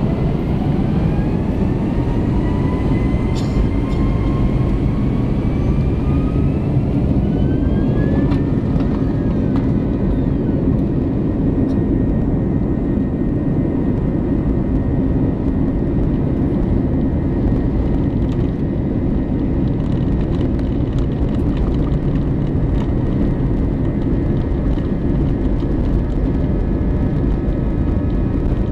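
Airliner's jet engines spooling up for the takeoff roll, heard from inside the cabin: a rising whine over the first eight seconds or so that levels off into a steady high whine over a heavy, even rumble.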